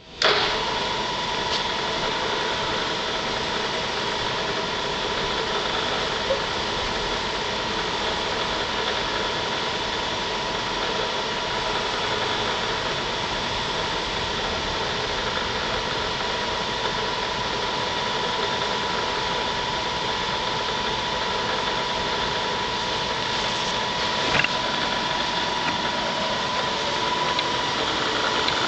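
Acer 3VKH CNC vertical knee mill running: a steady mechanical hum with an even, high whine.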